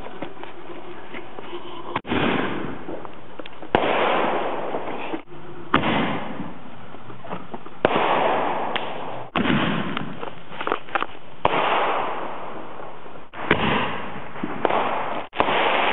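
Backyard consumer fireworks going off: a string of about ten sharp bangs a second or two apart, with loud hissing and crackling between them.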